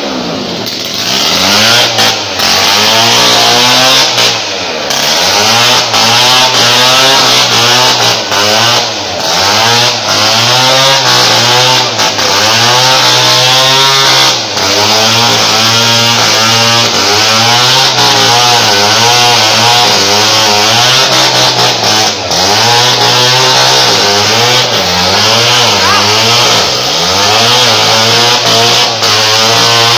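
A small engine running loud and revving up and down over and over.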